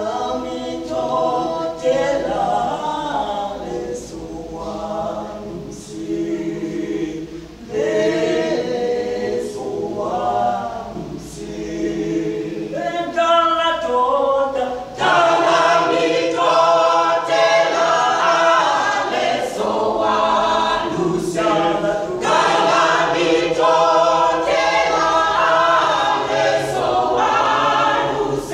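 Church choir singing in several-part harmony, growing fuller and louder about halfway through.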